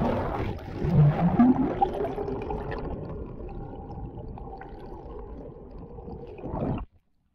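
Water heard through a camera held just under the surface: a sudden muffled rush of water and gurgling as it goes in, loudest about a second in, then a steadier watery rumble that cuts off abruptly near the end.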